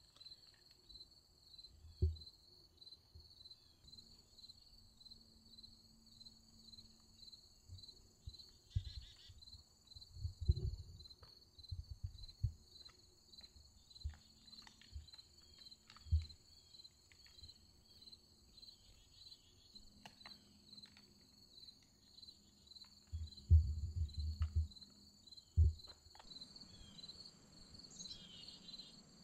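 Insects chirping in a steady, evenly pulsing high rhythm, with short low thumps scattered through and a cluster of them about three-quarters of the way in.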